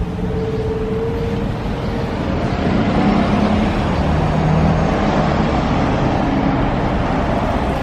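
Motor vehicle noise: a steady low engine sound that gets louder about two and a half seconds in and stays up.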